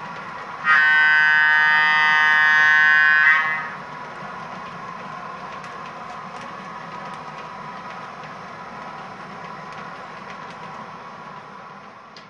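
Horn of an MTH Premier O-gauge Pennsylvania Railroad FF1 model electric locomotive, sounded by its onboard sound system in one steady blast of about three seconds starting under a second in. Under the horn and after it comes the steady sound of the train's freight cars rolling on O-gauge track.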